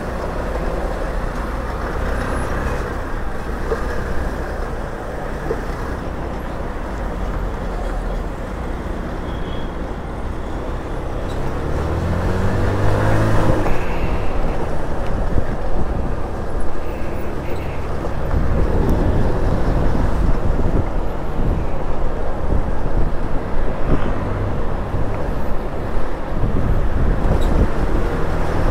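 Motor scooter being ridden in traffic: steady engine and road noise. About twelve seconds in the engine note rises as it speeds up, and the riding noise stays louder after that.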